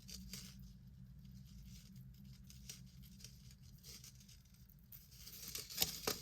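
Faint clinking and rustling of tangled necklace chains being handled and pulled apart. The small clicks come scattered, with a louder cluster near the end.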